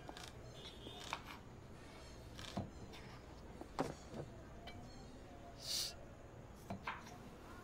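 Faint, scattered knife taps on a wooden cutting board as small red onions are chopped by hand, with a short sniff a little before the end.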